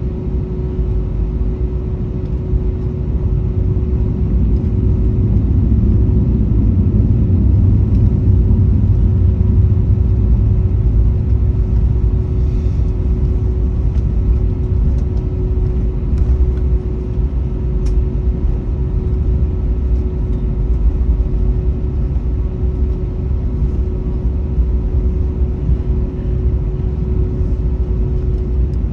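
Cabin noise of an Airbus A321neo taxiing, heard from a window seat over the wing: a steady low rumble from its Pratt & Whitney geared turbofan engines at taxi power and the rolling aircraft, with one steady hum held over it. It grows a little louder a few seconds in.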